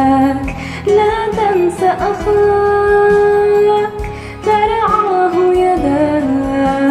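Song music: a melody of long held and gliding notes, sung by a female voice without clear words, over a backing track with a regular beat.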